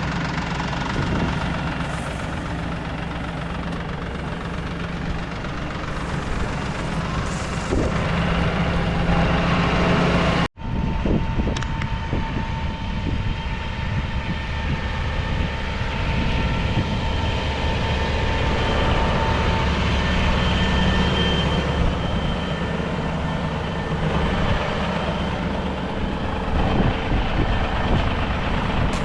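Tractor engine running steadily. The sound drops out briefly about ten seconds in.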